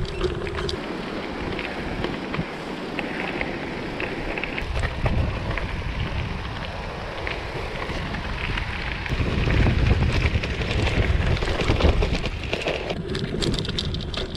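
Gravel bike ridden over a rough trail: tyres on gravel and scattered clicks and rattles, under wind buffeting the action camera's microphone. The wind rumble grows louder about nine seconds in.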